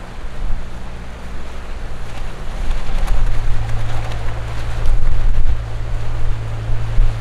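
Small crab fishing boat's engine running steadily as it motors past, a low hum that grows louder about three seconds in. Wind buffets the microphone over the rush of the boat's wash and the sea.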